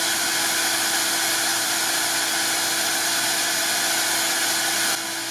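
Shop vacuum running steadily, an even rushing hiss with a constant motor hum; it drops a little in level near the end.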